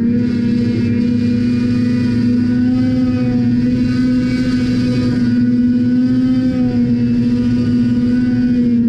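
Personal watercraft engine running at a steady cruising speed across the water: one even, unchanging drone with no revving, over a rush of water and wind noise.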